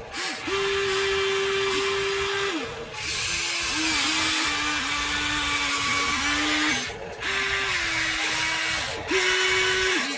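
Electric motors of a Huina radio-controlled toy excavator whining as it swings and works its boom and bucket. The whine comes in stretches of a few seconds, changing pitch with each movement, with short breaks between.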